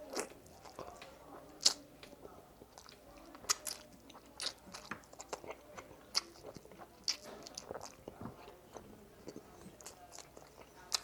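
Close-up eating sounds: a person biting and chewing fried frog legs, with scattered sharp crunches, lip smacks and wet mouth clicks at irregular intervals.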